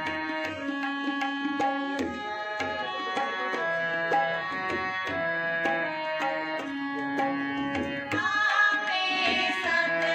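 Harmonium playing held chords over tabla strokes, a devotional accompaniment. Singing comes in about eight seconds in.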